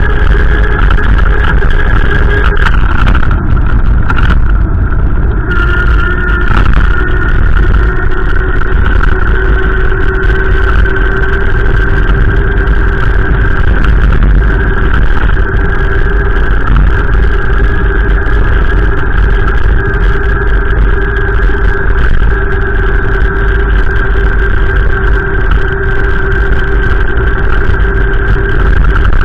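A steady vehicle drone over a heavy low rumble, its pitch stepping down slightly about three to five seconds in.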